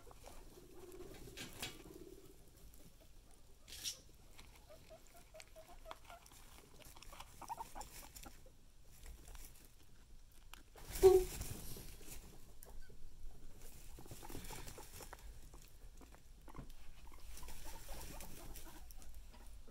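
A guinea pig rustling and moving about in hay, with a few soft, short low-pitched calls. A brief louder sound comes a little past halfway.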